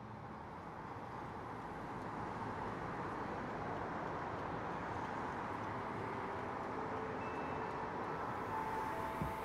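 Steady city traffic ambience, a low even rumble of distant vehicles fading up from silence. About six seconds in, a few faint held notes come in over it.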